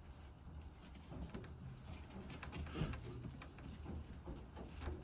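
Young racing pigeons moving about in their loft: faint scattered taps and rustles over a low steady rumble, with one louder rustle nearly three seconds in.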